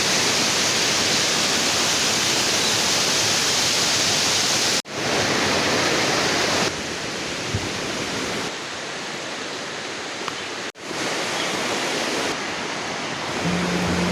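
Steady rushing of a waterfall and mountain stream, heard in several edited stretches. It cuts out sharply twice, about five and eleven seconds in, and changes in loudness from stretch to stretch.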